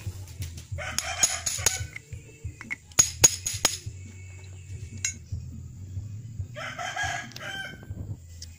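A rooster crowing twice, each call about a second long, one about a second in and one near the end. In between, around three seconds in, come a few sharp metallic clicks: motorcycle front-fork parts knocking together as they are handled.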